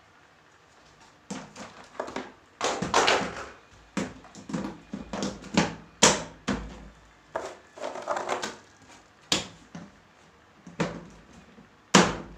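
Plastic panels of a Tabitha five-tier plastic cabinet knocking, clacking and scraping as they are handled and set into the base, starting about a second in as a string of irregular knocks with a few sharp, loud clacks.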